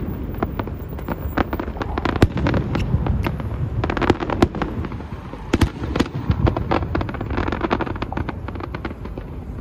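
Aerial fireworks going off close by: a dense, continuous run of sharp cracks and pops from bursting shells and crackling stars.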